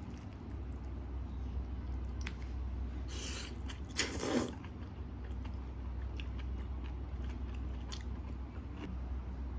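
A person eating the steamed pear, with small clicks and chewing sounds and two louder noisy bursts about three and four seconds in, over a steady low hum.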